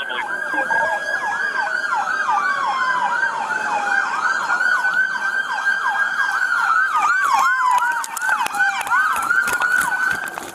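Two emergency-vehicle sirens sounding at once: one in a fast yelp of about four sweeps a second, the other in a slow wail that falls and rises every few seconds. Both cut off just before the end.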